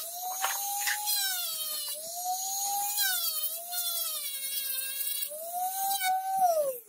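Small electric rotary tool whining as its bit grinds and shapes a copper-coloured metal knife guard, including its slot. The pitch sags and recovers several times as the bit is pressed into the metal, then falls away and stops at the very end as the tool is switched off.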